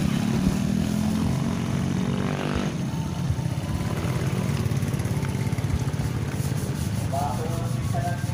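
Small motorcycle engines running as motorbikes ride slowly across a railway level crossing, a steady low rumble. A voice is heard near the end.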